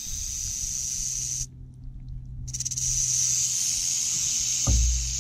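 Speckled rattlesnake's rattle buzzing steadily and high, stopping for about a second partway through, then starting up again. A low wind rumble on the microphone runs underneath, with a loud low thump near the end.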